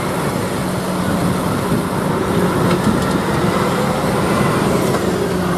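Concrete mixer truck's diesel engine running steadily, a constant low hum under a broad noise of traffic.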